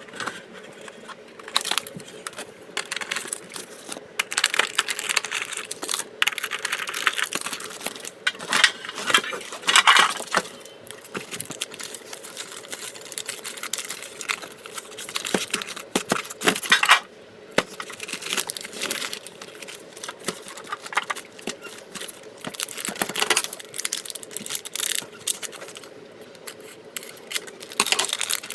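Match Attax trading card packets and cards being handled and opened: irregular crinkling and rustling of foil wrappers, with many small clicks and taps of cards and tin.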